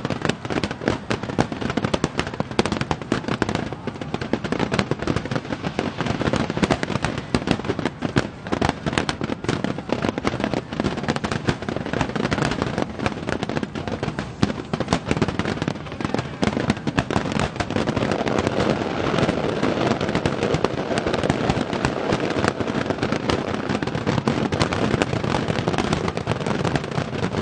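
A massed barrage of aerial fireworks shells bursting together: a dense, unbroken run of overlapping bangs and crackle, which thickens into a more continuous crackling about two-thirds of the way through.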